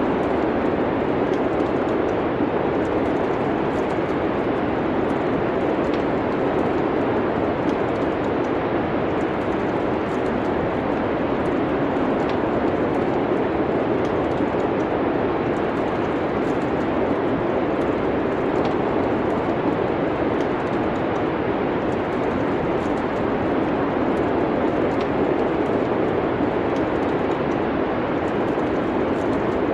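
Steady wind of a winter snowstorm, with the small crackles and snaps of a wood fire scattered through it.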